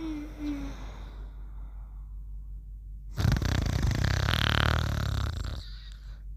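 Snoring in a repeating pattern. A falling whistle fades out just after the start, and about three seconds in comes a loud rattling snore lasting a little over two seconds.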